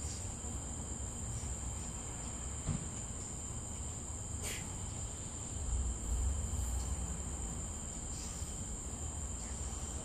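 Crickets trilling steadily, a continuous high-pitched tone over a low rumble, with a faint click about four and a half seconds in.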